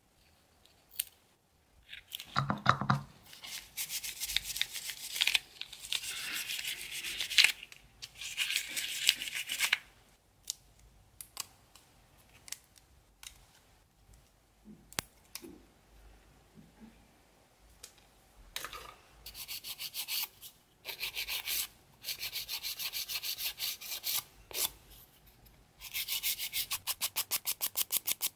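Rubbing and scraping on gel nail extensions, in several stretches. Near the end comes a fast run of short, even nail-file strokes, several a second, as the gel extensions are shaped.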